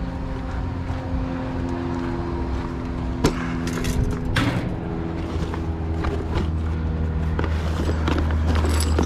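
A steady low mechanical hum, with a few sharp knocks and some rustling from boxes of scrap being rummaged through.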